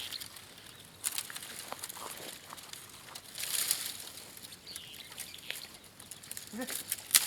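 Dry twigs and branches being handled and snapped by hand: rustling with scattered sharp cracks and clicks, and a louder burst of rustling about halfway.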